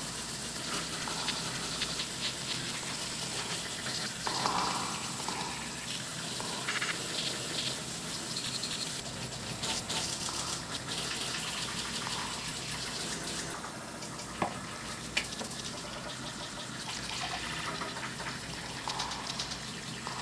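Shower running: a steady spray of water, with scattered small clicks and knocks and one sharper knock about two-thirds of the way through.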